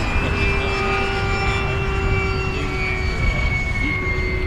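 Electric ducted fan of a radio-controlled Jet Arrows Vampire model jet (Wemotec Midifan with a Mega brushless motor) whining steadily in flight, its pitch sliding slowly down over the second half.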